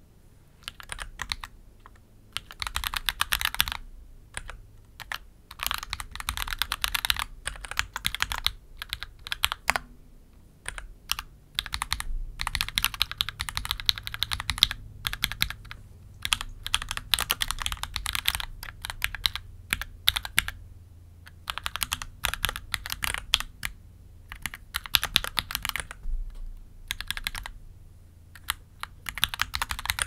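Mechanical keyboard with Gateron Oil King v2 linear switches, typed on in quick bursts of keystrokes with short pauses between them.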